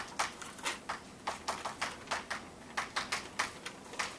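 Chalk tapping and scratching on a blackboard as an equation is written out: a quick, irregular run of sharp taps, about five a second.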